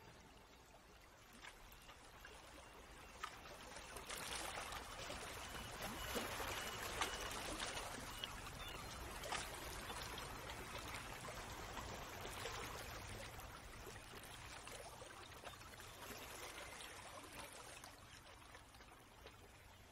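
Faint running, trickling water, swelling a few seconds in and fading toward the end, with a few light ticks.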